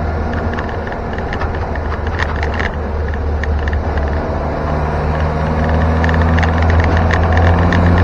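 Land Rover Series 2 109-inch station wagon's four-cylinder petrol engine pulling on the move, its note rising and getting louder from about halfway in. A constant clatter of rattles runs over it, from the tailgate rattling around for want of better rubber bumpers.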